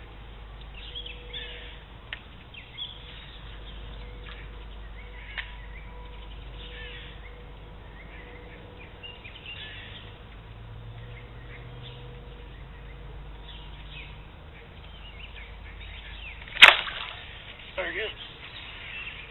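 Faint bird chirps over a steady low hum, then near the end a single sharp, loud swish-snap as the angler sweeps his fishing rod back to set the hook on a bass biting his jig, followed by a few quieter short sounds.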